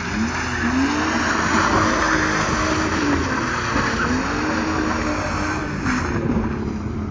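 Car engine pulling hard, its pitch climbing and dropping several times as the car accelerates and slows through a course, over loud tyre and road noise.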